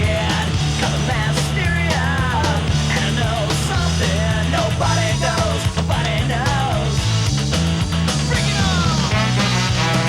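Soundtrack music: loud rock with a steady bass line, drums and a singing voice.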